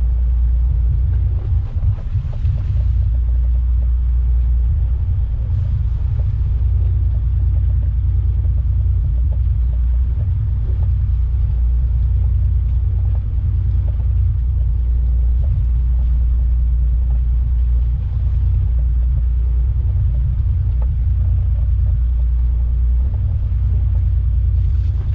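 Steady low rumble of a fishing boat's engine running.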